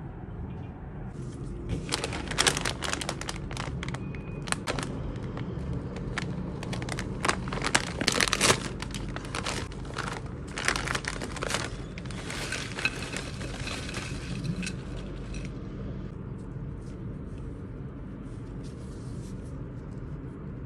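A plastic potato chip bag crinkling and crackling as gloved hands handle and open it, in quick bursts that are loudest about eight seconds in. The crinkling dies away after about fifteen seconds, leaving a low steady background.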